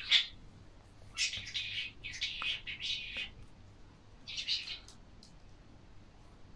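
Pet budgerigar chattering in several short, high-pitched bursts during the first five seconds.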